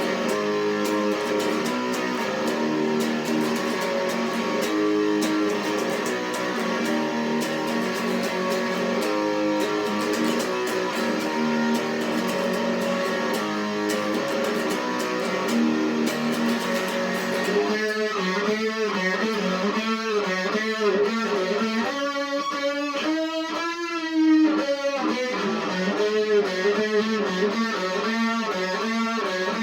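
Electric guitar played through an amplifier for a sound test, chords and notes ringing out. About two-thirds of the way through, the tone turns wavering and pulsing.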